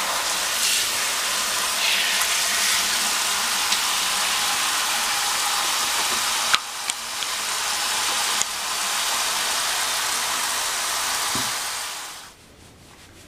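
Shower water running into a bathtub, a loud steady hiss with a couple of brief clicks partway through, cutting off suddenly near the end.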